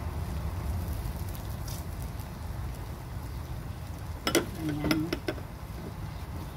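A metal slotted spoon scooping cooked rice and knocking sharply against the cookware a few times about four seconds in, over a steady low rumble.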